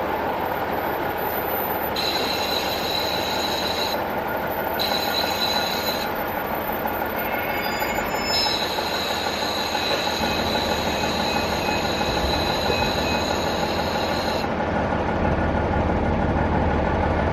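JR East KiHa 48 diesel railcar running, heard from inside with a window open: a steady rumble of wheels and wind. A high-pitched wheel squeal sets in about two seconds in, breaks off twice and stops a few seconds before the end.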